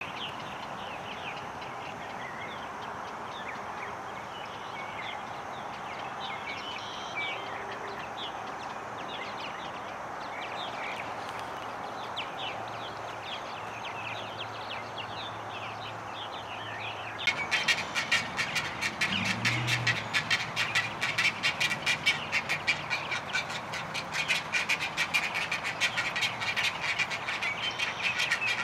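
Birds in a great egret nesting colony: scattered short chirps over a steady background. About seventeen seconds in, a loud, rapid clicking chatter of birds starts suddenly and goes on, with a brief low call around nineteen to twenty seconds.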